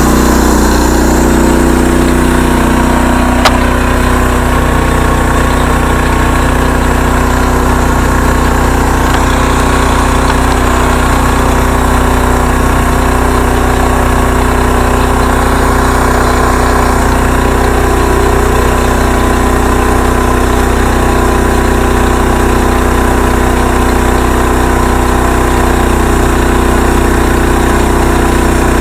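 Homemade band sawmill's gas engine running steadily at a constant speed while the band blade saws through a log. A single sharp click about three and a half seconds in.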